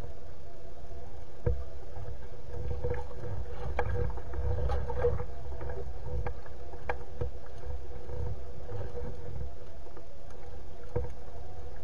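Choppy lake water lapping and sloshing against a floating nest platform, with a low uneven wind rumble on the microphone. A steady faint hum runs underneath, and sharp clicks come here and there.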